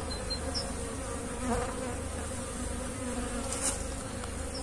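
Honey bees buzzing in a steady hum on a comb frame lifted out of the hive.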